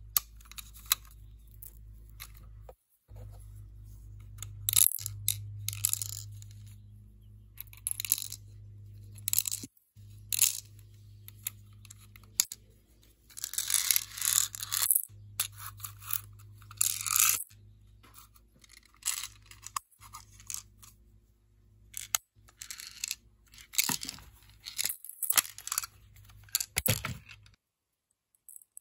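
A Daisy Beretta BB pistol's magazine being handled: repeated sharp clicks, rattles and scraping of the magazine's parts, over a steady low hum. The sounds cut off near the end.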